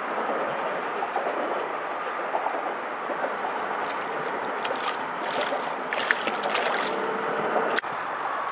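A small hooked red drum (puppy drum) thrashing and splashing at the water's surface as it is reeled in, with a run of splashes in the middle, over a steady rushing background noise.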